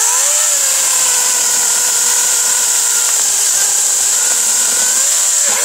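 LiTHELi 40-volt, 14-inch cordless electric chainsaw. Its motor soft-starts, rising in pitch over about the first half-second, then runs at a steady whine with a hissing chain while cutting into a log. It dips briefly near the end and stops when the trigger is released.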